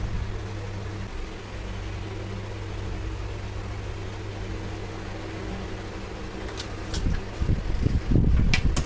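Steady low electrical hum of a running fan, with a faint hiss. A few light clicks and low knocks come near the end.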